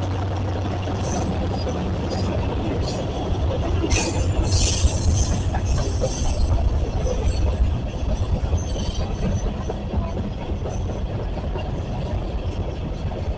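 Freight train rolling past close by: a steady low rumble of wheels on rail, with several brief high-pitched metallic squeals and clanks between about one and seven seconds in.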